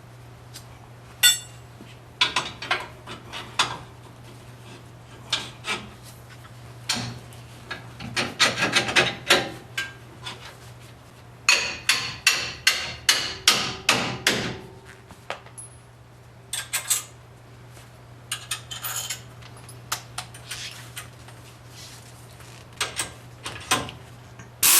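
Hand tools working on a truck's suspension bolts: groups of short, sharp metallic clicks and knocks, with a run of about eight quick strokes partway through, over a steady low hum.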